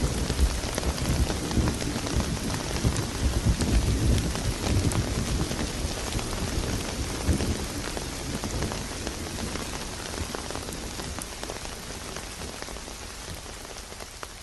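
Steady rainfall with a low rumble of thunder in the first half that dies away. The whole sound fades gradually toward the end.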